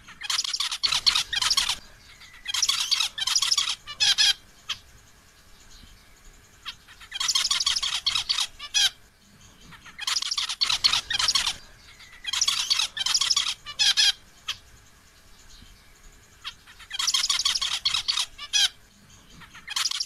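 Male zebra finch singing: six short song bouts of rapid high notes, each about one and a half to two seconds long, separated by pauses of one to three seconds.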